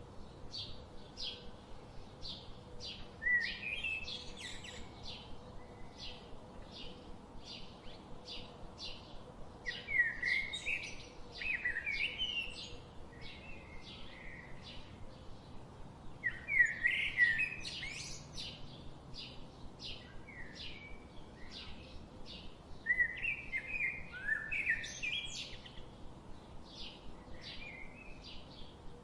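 Small birds chirping: a short chirp repeating about twice a second, broken four times by louder bursts of twittering, warbling song.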